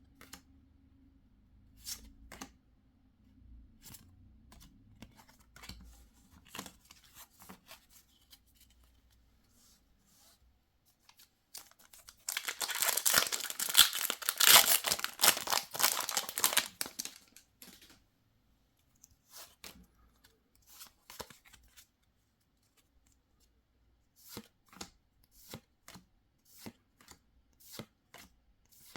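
Pokémon booster pack's foil wrapper torn open by hand, a loud crackling rip lasting about five seconds near the middle. Before it come scattered light handling clicks, and near the end a run of soft, evenly spaced taps about twice a second as the cards are handled.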